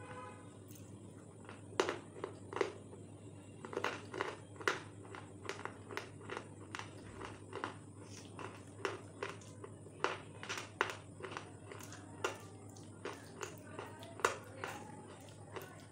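Close-up biting and crunching of a brittle food: irregular sharp crunches a few times a second, with the louder bites about two, five and fourteen seconds in, over a steady low background hum.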